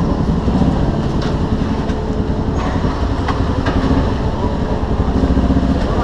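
Steady heavy engine rumble filling a ferry's steel vehicle deck, with a few sharp metallic knocks over it.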